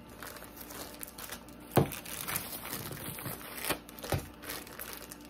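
Clear plastic sleeve crinkling as a rolled diamond painting canvas is slid back into it, with a few sharper snaps, the loudest about two seconds in.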